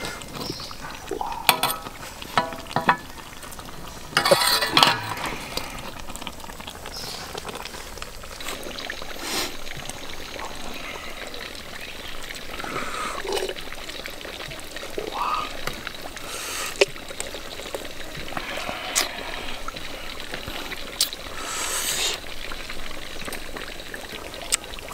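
Broth being ladled and poured over a whole chicken in a steel wok, with scattered clicks and knocks of the ladle and handling.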